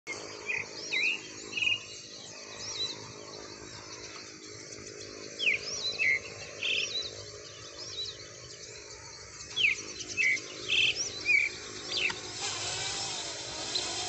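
Birds calling repeatedly in alarm at a small drone, with sharp chirps that sweep quickly in pitch and short buzzy rattles, over a steady low hum. A broad hiss rises near the end.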